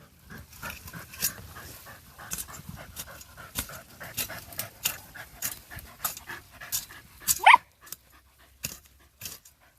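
Criollo dogs panting, with scattered clicks and rustling as they move about. One short rising yelp comes about seven and a half seconds in.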